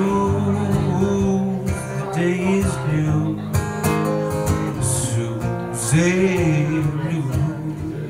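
Acoustic guitar strummed steadily, with a man's voice singing long held notes over it.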